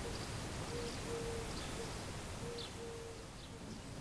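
A dove cooing a three-note phrase, short-long-short, repeated about every second and a half, with a few faint higher bird chirps over a steady outdoor hiss.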